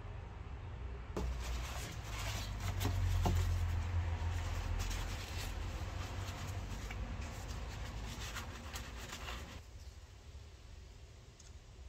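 Paper towel rustling and light clicks of plastic expansion-tank parts being handled and wiped, over a low steady hum. The rustling starts about a second in and dies down a couple of seconds before the end.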